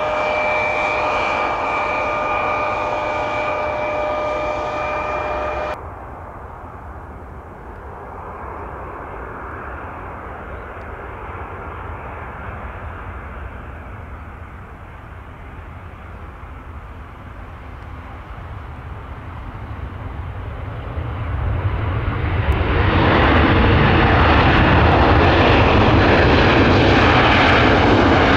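A Mitsubishi CRJ-900's jet engines whine steadily on the landing rollout until a sudden cut about six seconds in. A Boeing 737-800's jet engines follow as a low rumble that swells into a loud roar from about 22 seconds in, as it touches down and rolls out.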